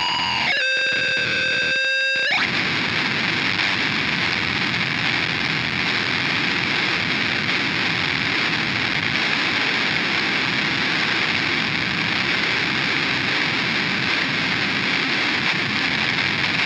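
Forcefield 2000 PLL noise box: a buzzy pitched tone holds steady for about two seconds, then breaks into a dense, unchanging wall of harsh noise.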